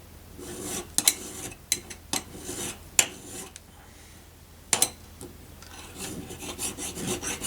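Fine metal file (a number 4 cut) rasping back and forth across the end of a silver ring shank held in a squaring jig, in a run of strokes, a pause of about a second, then more strokes. A few sharp clicks are heard as the file meets the jig.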